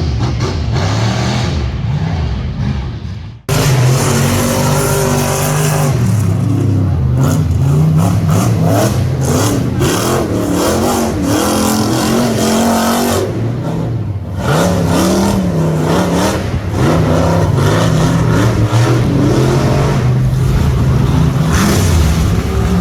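Rock bouncer race buggy engines revving hard, their pitch rising and falling again and again as the throttle is worked. There is a sudden brief drop-out about three and a half seconds in.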